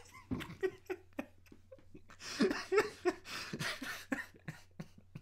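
A man laughing hard in short, broken bursts with breaths between them. The laughter is loudest in the middle and tails off toward the end.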